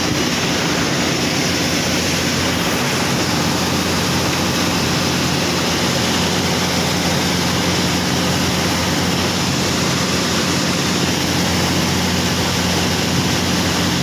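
Combine harvester running close by while its unloading auger pours threshed wheat into a trailer: a steady engine drone under an even rushing noise, holding unchanged throughout.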